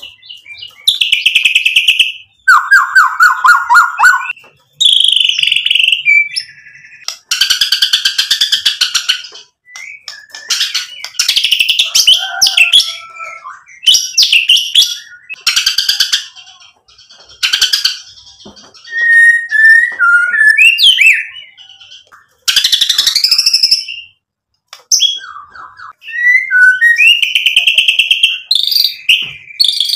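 Male white-rumped shama (murai batu) in full song, running through a varied repertoire. Loud phrases of a second or two, separated by short pauses, mix clear whistles with fast repeated-note trills and harsher rattling bursts. There is a brief lull about three quarters of the way through.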